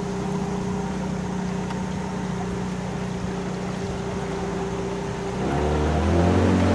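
Longboat's engine running at a steady hum, then changing to a lower, louder note about five seconds in.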